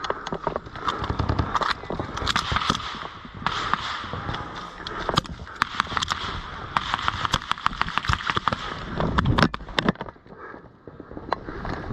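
Airsoft guns firing: repeated strings of rapid sharp pops and scattered single shots over a steady hiss, easing off for a moment about ten seconds in.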